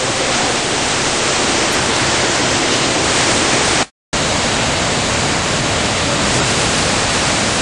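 Fast-flowing water rushing through the salmon ladder and the river below it, a loud steady rush that drops out for a moment about four seconds in.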